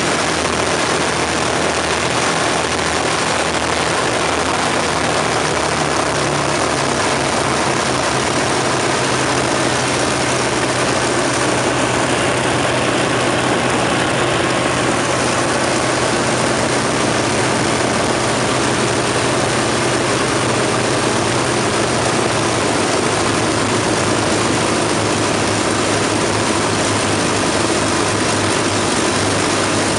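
Avro Lancaster's four Rolls-Royce Merlin V12 engines running together on the ground, propellers turning, a loud steady engine and propeller noise with a low engine note that shifts slightly a few seconds in.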